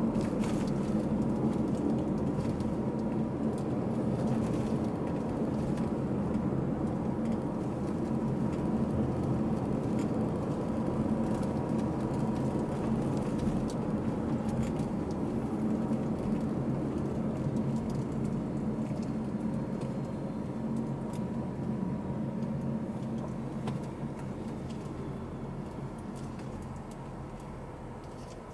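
Car's engine and tyre noise heard from inside the cabin: a steady low rumble with a faint steady whine, growing quieter over the last several seconds as the car slows into a parking area.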